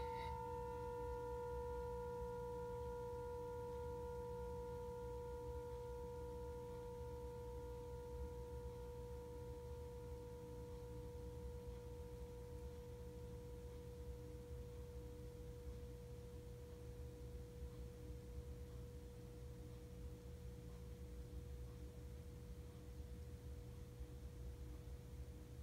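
Brass singing bowl ringing out after being played, a long, slowly fading hum with a low note and a higher overtone. The higher overtone dies away about halfway through while the low note lingers on.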